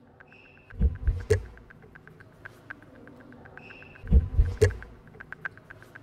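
Manual typewriter typing: a steady, rapid run of key clicks, with the small end-of-line bell ringing twice, each time followed by the heavy clunk of the carriage being returned, the loudest sounds.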